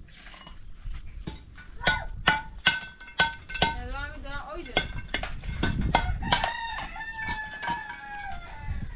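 Chickens: sharp clucking calls with clicks through the middle, then a rooster's crow in the second half, ending in a long, slowly falling held note.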